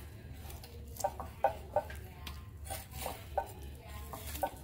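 A chef's knife carving a roast duck on a china plate: a scattering of short clinks and scrapes as the blade knocks against the plate, over a low steady hum.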